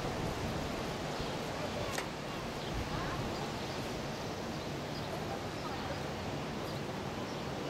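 Steady low rumble and hiss of a tugboat's diesel engines and propeller wash churning the canal water, with one sharp click about two seconds in.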